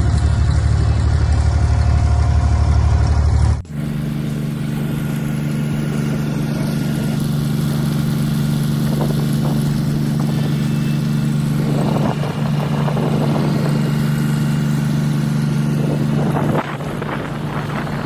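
Abra water taxi's engine running steadily under way. About four seconds in, the sound changes abruptly from a deep throb to a higher, steady hum, and it shifts again near the end.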